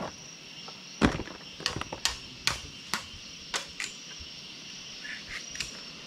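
Steady high trilling of a rainforest insect chorus, with a string of sharp knocks and taps between about one and four seconds in, the first the loudest.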